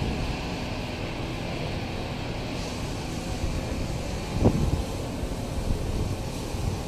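Moscow Metro train running along the track through a station, a steady rumble with a short knock about four and a half seconds in.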